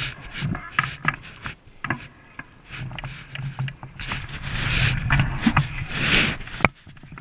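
Mountain bike clicking and rattling as it is manoeuvred through a narrow metal barrier gate, with scattered knocks. In the second half, clothing rubs across the handlebar-mounted camera, making a loud rustling hiss.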